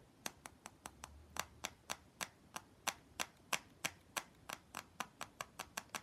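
Fingers tapping on a hard plastic heart-shaped toy package, making quick, irregular clicks, about five a second, for ASMR.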